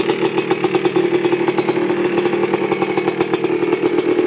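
Honda ATC 250R's freshly rebuilt two-stroke single-cylinder engine idling steadily through an FMF Gold Series fatty expansion-chamber pipe, with a rapid, even, rattly firing beat.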